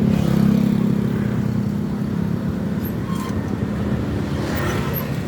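A motor running steadily with a low, even hum, with a few faint short sounds over it.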